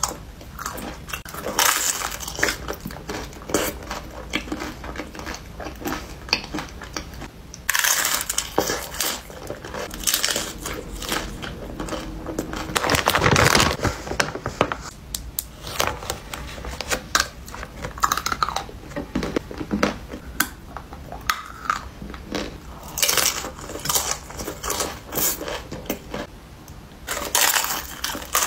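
Crunchy biting and chewing of food: a pickle, a hard taco shell and a breaded chicken sandwich, in a series of crackly bites. A snack bag rustles about halfway through.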